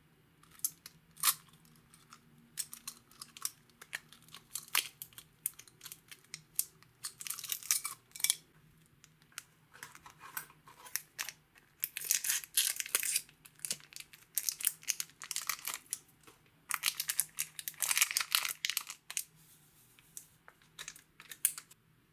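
A small plastic sachet of green glitter crinkling as it is handled and snipped open with scissors: scattered clicks and short crinkles, with two longer stretches of crinkling in the second half.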